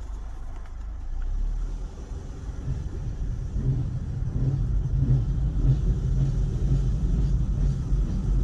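A car driving: a steady low rumble of road and engine noise that grows louder a few seconds in.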